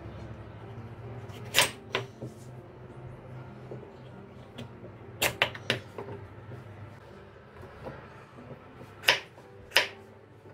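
Kitchen knife cutting through kabocha squash and striking a wooden cutting board: sharp knocks in three small groups, seven in all. A low steady hum runs underneath.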